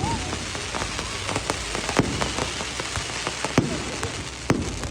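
A huge bonfire burning with a steady dense crackle and a few sharp, loud pops.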